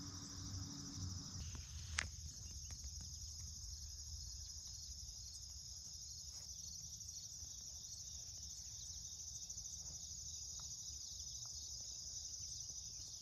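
Crickets chirping in a steady, high, unbroken chorus, with a single sharp click about two seconds in.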